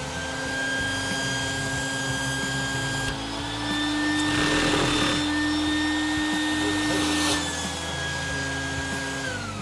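Vacuum cleaner motor running with a steady high whine while it drives a LEGO single-sliding-valve vacuum engine. From about three seconds in, the pitch steps up and a louder rush of air is drawn through the engine for a few seconds. The whine winds down near the end.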